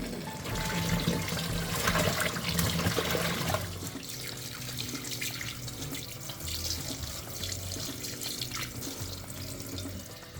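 Water from a kitchen tap running into a sink, heaviest for the first few seconds and then at a lower flow, with soft background music underneath.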